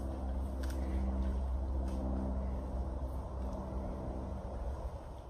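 A steady engine drone: a deep rumble with a few steady hum tones above it, easing off slightly near the end.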